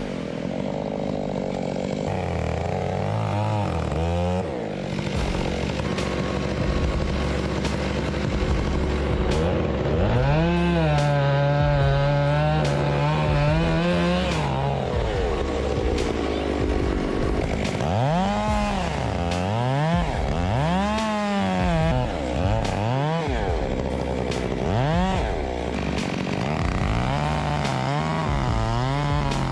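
Two-stroke chainsaw running and revving up and down, held at high revs for a few seconds near the middle, then a run of quick throttle blips before settling at a steady speed near the end.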